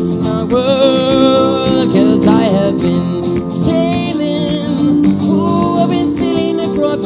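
Band music: a singing voice over guitar and held chords.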